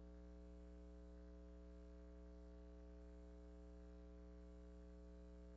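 Near silence: a steady, faint electrical hum from the recording or sound system.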